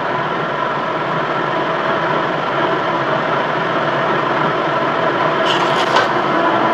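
A motor-driven machine running steadily, with a brief higher hiss about five and a half seconds in.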